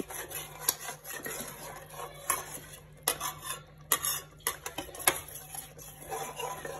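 A spoon scraping and clinking against a pressure cooker pot as ground masala paste is stirred in it, with several sharp knocks spread through.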